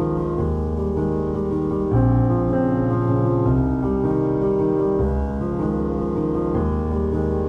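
Background piano music, sustained chords changing every few seconds.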